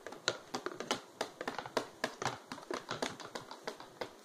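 Hooves of a plastic Breyer model horse tapping on a hardwood floor as it is walked along by hand, a quick, uneven run of clicks several times a second like hoofbeats, stopping just before the end.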